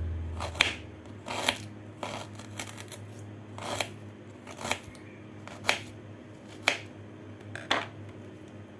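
Sharp knocks of kitchen utensils during food preparation, about one a second, over a low steady hum.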